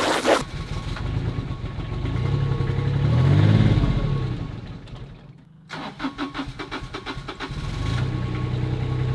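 Diesel engine of a Toro ride-on reel mower struggling to run: it revs up, dies away about five seconds in, then is cranked again with rapid even pulses and catches, running steadily near the end. Hard starting after the tank was run dry, before fresh fuel has cycled through.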